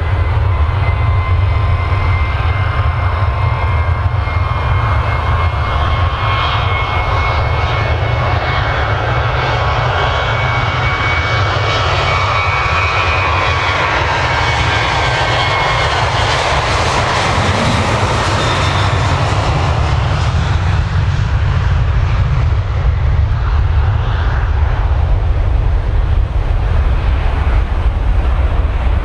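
Boeing 737-800's twin CFM56-7B turbofan engines at takeoff thrust: a steady deep rumble with a whining fan tone. The noise swells a little past halfway as the jet passes, then carries on as it climbs away.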